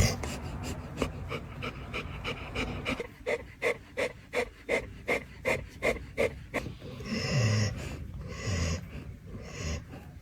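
Dog panting rapidly, about three breaths a second, then a few short, low vocal sounds near the end.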